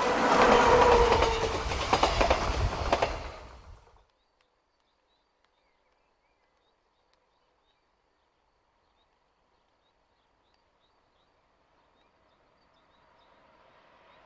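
Passenger coaches of a locomotive-hauled train passing close at speed, wheels clattering over the rail joints. The sound stops abruptly about four seconds in and gives way to near silence, with a faint, slowly rising rumble near the end.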